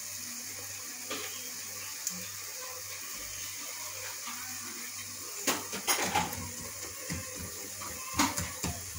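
Wooden spoon stirring in an aluminium pot of spinach, scraping and knocking against the pot: a few single clicks early, then clusters of louder knocks past the middle and near the end, over a steady hiss.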